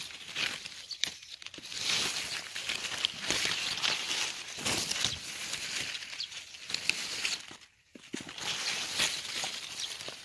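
Strawberry leaves and stems rustling and crackling as hands push through the foliage and pick strawberries from a potted plant close to the microphone, with a short pause about eight seconds in.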